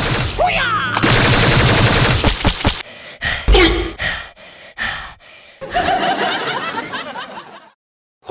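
Automatic assault-rifle fire sound effect: a continuous burst for nearly three seconds, then a string of separate sharp cracks, with a short pained, groaning voice among them.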